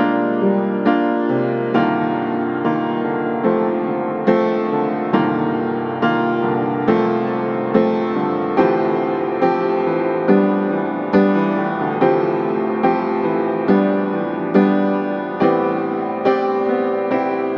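Slow, tender piano music: chords struck at an even pace, each ringing and fading before the next.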